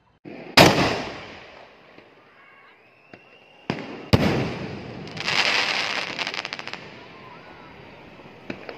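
5-inch aerial firework shell: a loud bang about half a second in, fading away. About four seconds in come two sharp bangs as the shell breaks overhead, followed by a couple of seconds of crackling and a few small pops near the end.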